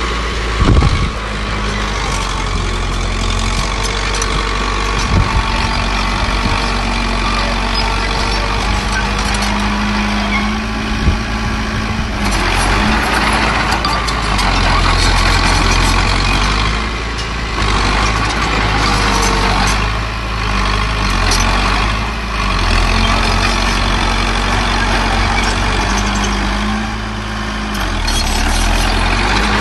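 Diesel engines of a small bulldozer and dump trucks running steadily at a soil-filling site, with a few short knocks near the start and swells in level as the machines work.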